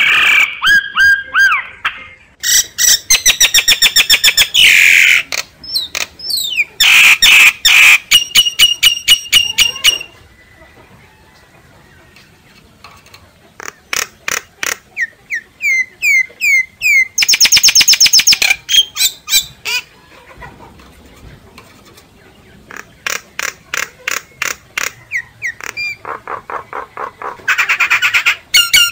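Myna calling: loud runs of rapid, repeated harsh notes and squawks, with a pause of a few seconds about a third of the way in. These are decoy myna calls, used to stir up and lure wild mynas.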